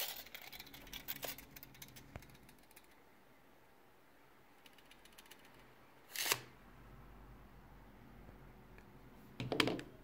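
Stanley LeverLock 3 m tape measure being worked by hand: a quick run of small clicks and rattles over the first two seconds, a short rasp of the blade about six seconds in, and a second rasp ending in a sharp clack near the end as the blade runs back into the case.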